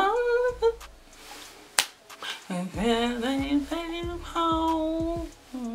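A woman singing a few held, gliding notes without accompaniment, with a single sharp click like a finger snap about two seconds in.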